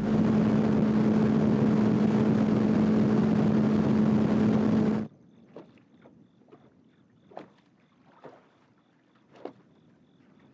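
Outboard motor on a bass boat running at speed, a steady engine drone under a rush of wind and water, cut off abruptly about five seconds in. After that it is quiet apart from a few faint, short ticks.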